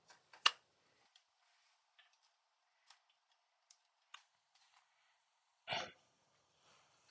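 Small clicks and taps of tools being handled on a workbench, with one sharp click about half a second in and faint scattered ticks after it. A short, fuller rustle or breath-like noise comes near six seconds.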